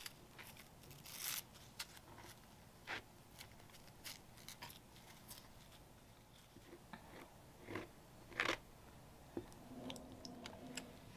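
Metal palette knife scraping and dabbing glue-soaked tissue paper onto burlap: quiet, irregular scrapes and crinkles, with a few louder strokes.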